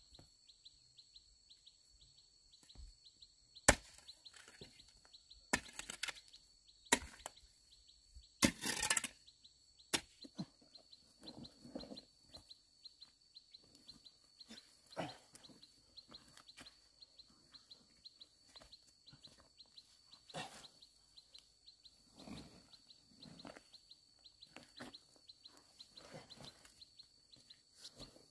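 Irregular knocks, taps and scrapes of work by hand, with several sharp knocks and a short rough scrape in the first ten seconds and softer ones after. A steady high-pitched tone runs underneath.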